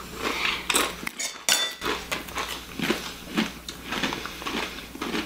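Tortilla chips being bitten and chewed: a run of irregular crisp crunches.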